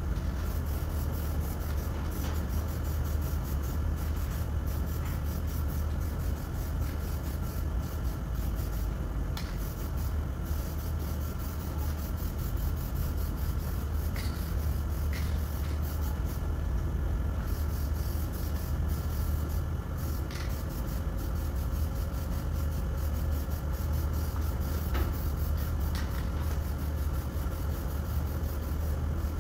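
Steady low machine drone, unchanging in level, with a few faint clicks scattered through it.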